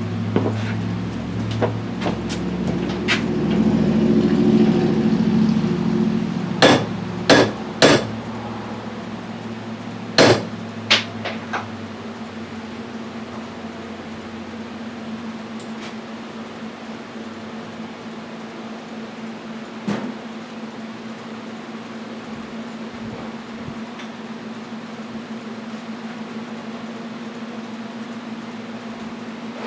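A hammer striking metal in five sharp blows, a group of three and then a pair, straightening a bent washer, over a steady low hum.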